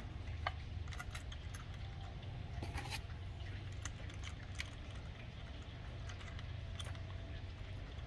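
Faint, scattered metallic clicks and ticks of small switch hardware being handled by hand: a washer, an on-off plate and a nut going onto a toggle switch's threaded shank in a small metal switch box. A steady low hum runs underneath.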